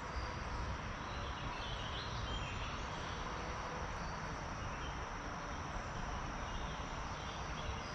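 Steady outdoor background hiss, with a few faint high chirps about one and a half to two and a half seconds in.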